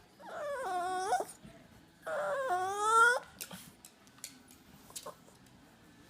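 Chihuahua whining in two drawn-out cries of about a second each, the pitch sagging and then rising sharply at the end of each cry.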